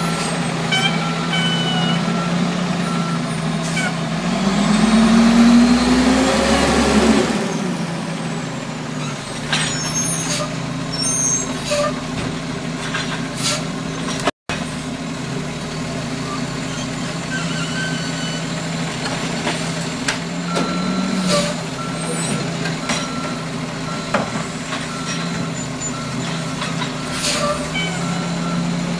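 Automated side-loader garbage truck with its diesel engine running; about four seconds in it revs up with a rising whine for a few seconds, then settles. Its backup alarm beeps in evenly spaced pulses at the start and again through the last several seconds, with scattered clanks in between.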